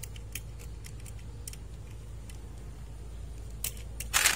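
Light clicks and taps from a die-cast toy motorcycle being handled, with a louder brief scraping rustle near the end.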